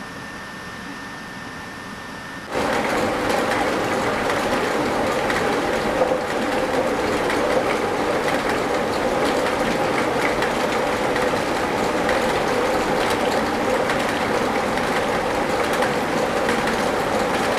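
A quiet steady hiss, then about two and a half seconds in the sound jumps abruptly to a maize mill running: loud, steady grinding with a rapid, continuous clatter.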